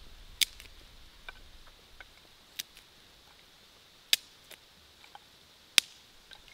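Four sharp cracks about a second and a half apart, with fainter clicks and ticks between them, from sticks and kindling being handled and worked at a campfire lay.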